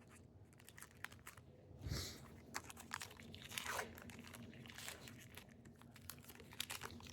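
Faint crinkling and tearing of a trading-card pack wrapper being opened, with scattered light clicks and rustles as the cards are handled.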